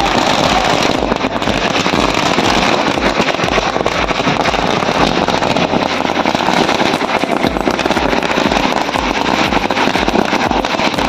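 Loud, steady din of a street celebration, with firecrackers crackling densely throughout.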